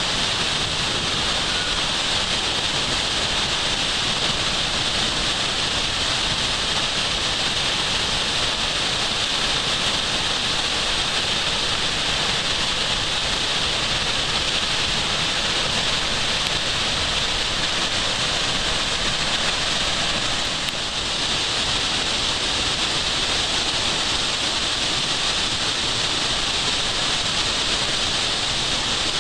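Heavy creek waterfall pouring down a narrow rock canyon: a steady, loud rush of white water with lots of water coming down.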